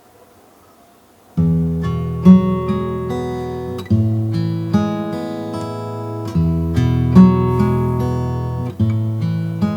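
Background music: acoustic guitar playing strummed chords that change about once a second, coming in about a second and a half in after a short quiet moment.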